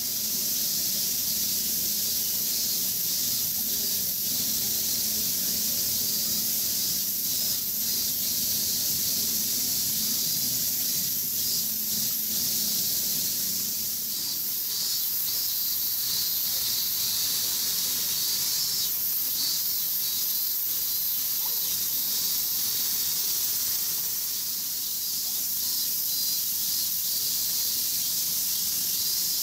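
A steady, high-pitched hiss with no breaks. A low hum sits under it in the first half and fades out about halfway through.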